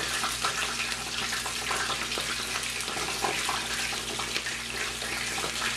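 Cornstarch-coated chicken pieces deep-frying in hot lard: a steady, dense crackling sizzle.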